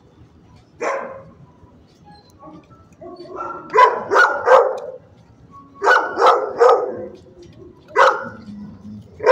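Dog barking in short, loud barks: a single bark about a second in, then quick runs of three or four, then single barks near the end.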